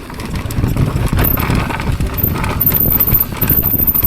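Mountain bike rattling down a rough dirt trail: irregular clatter and knocks from the tyres, chain and frame over the bumps, with a steady rumble underneath.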